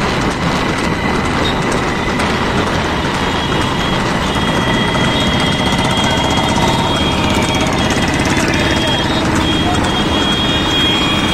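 Motorcycle engine running at road speed, with steady wind noise on the microphone.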